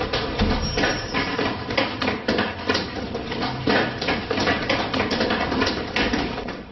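Many quick, irregular knocks and footfalls: several people running on a staircase, with clattering thuds.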